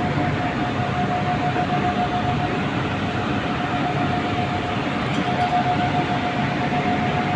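Steady industrial noise from steel-plant furnace equipment: a continuous rushing din over a low hum, with one steady high-pitched whine running through it.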